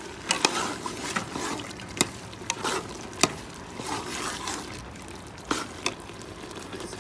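Metal spoon stirring black chickpeas frying in oil in a pressure cooker pot, clinking and scraping against the pot's side every so often over a soft sizzle.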